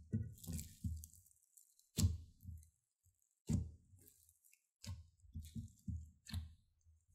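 Green slime mixed with small foam beads being squeezed, stretched and folded by hand: a string of wet squelches and pops with a crackle of beads, the loudest about two seconds in and again at three and a half seconds.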